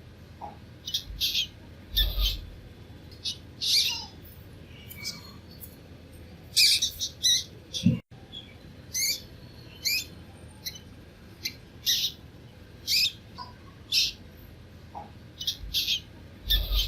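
Baby mice squeaking: a string of short, high-pitched squeaks at irregular intervals, with a brief break about eight seconds in.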